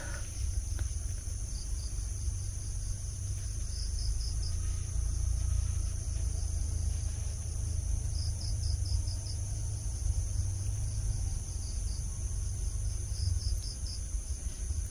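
Night insects, crickets, keeping up a steady high-pitched buzz, with short runs of chirps every few seconds. A low rumble runs underneath.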